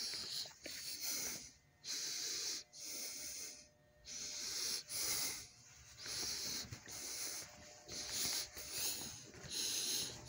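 A man breathing hard close to the microphone, out of breath, with a rushing breath about every second and short pauses between them.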